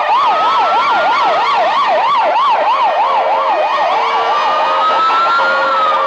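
Several ambulance sirens sounding at once as the ambulances drive past. A fast yelp, sweeping up and down about three to four times a second, runs over a slower rising and falling wail. The yelp stops about four seconds in, leaving the wail.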